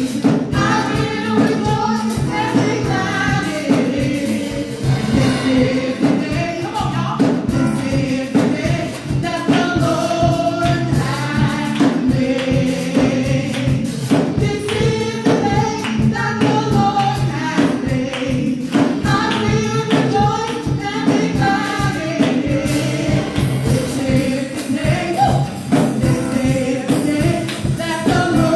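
Live gospel worship music: a group of singers with instrumental accompaniment and a tambourine-like percussion keeping a steady beat.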